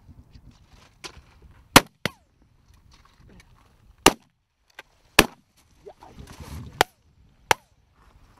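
Shotguns firing: about six sharp shots spread over several seconds, some loud and some fainter.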